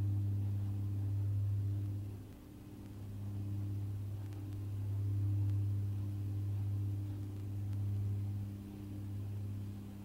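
A steady low hum with a few fainter, higher steady tones above it, slowly swelling and fading in loudness, with a brief dip about two seconds in.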